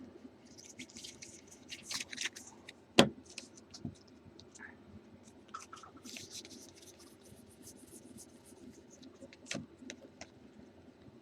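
Baseball trading cards being flipped and slid against one another, giving soft scraping rustles, with a sharp tap about three seconds in and another near the end.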